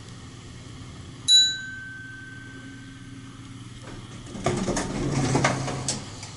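A vintage Otis elevator's hall chime strikes a single ding about a second in and rings out for about two seconds, over the steady hum of the elevator's motor-generator. About four seconds in, the elevator doors slide with a rumble for about a second and a half and stop with a knock.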